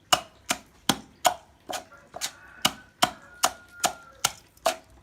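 Pestle pounding ginger and herbs in a mortar: sharp, evenly spaced strikes, about two and a half a second.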